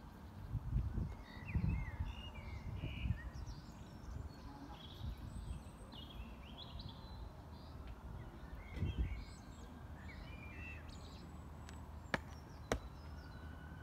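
Outdoor ambience: birds chirping on and off, with low gusts of wind rumbling on the microphone in the first few seconds and again about nine seconds in. Two sharp knocks half a second apart near the end.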